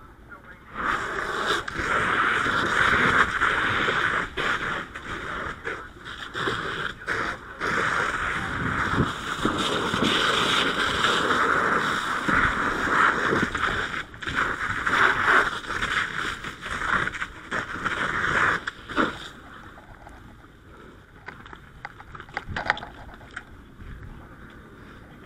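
Fire hose handline nozzle opened about a second in and flowing water with a loud hiss, broken by many brief dips, then shut off after about 18 seconds.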